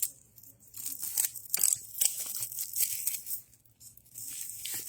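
Packaging of a scented wax bar being torn open and crinkled, as a run of uneven rips and rustles.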